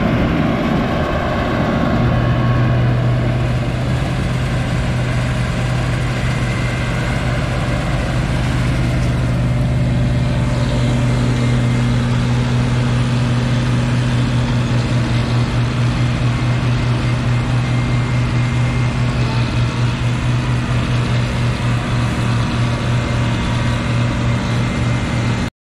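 1983 New Holland 8060 combine harvester running at work in the field: a steady engine hum over the broad noise of the threshing machinery. In the second half the sound takes on a fast pulsing beat.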